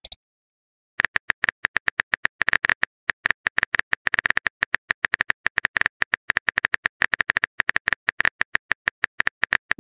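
Rapid, irregular keyboard-typing clicks, a texting-app sound effect for a message being typed, starting about a second in and running on to near the end.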